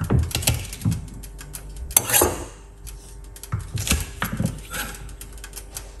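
Irregular knocks and clatter of a utensil and garlic against a stainless steel saucepan as crushed garlic cloves are added to the water.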